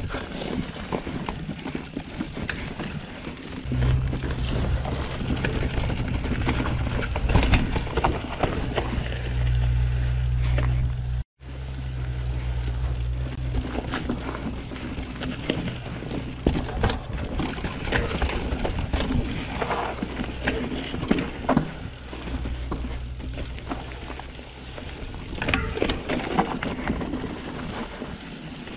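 Downhill mountain bike riding a rough trail: a constant rush of riding noise with frequent rattles and clacks from the bike, under music with a low bass line from about four seconds in. The sound drops out for an instant near the middle.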